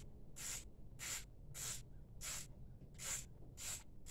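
Socket ratchet clicking in short, even strokes, about two a second, as a battery cable bolt is turned; the bolt is spinning in place instead of tightening.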